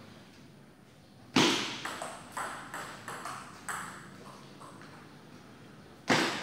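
Table tennis ball clicking off bats and the table in a rally: one sharp, loud hit about a second in, then a string of lighter ticks roughly every half second that fade away, and another loud hit near the end.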